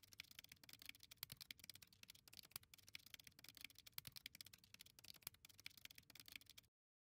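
Faint keyboard typing: a rapid, irregular stream of key clicks that stops abruptly near the end.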